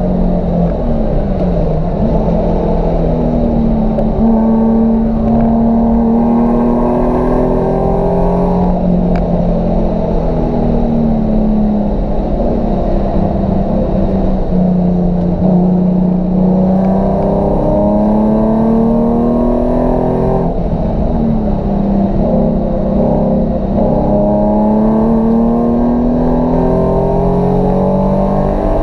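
Nissan 350Z's V6 engine pulling hard. Its pitch climbs steadily through the revs and drops back at each gear change, several times, with a lift and fall in revs about two-thirds of the way in.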